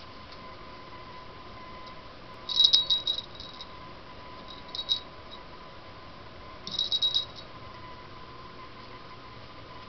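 Small bell on a dangling cat toy jingling in three short bursts, about two seconds apart, as a cat bats at the toy.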